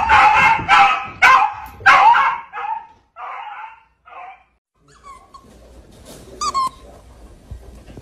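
A dog barking rapidly and repeatedly, about two barks a second, loudest in the first two seconds and fading out after about four. After a short pause, quieter sounds follow with one brief high squeak.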